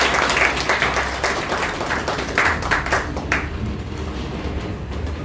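A small group of people applauding, the clapping dense at first and dying away about three and a half seconds in.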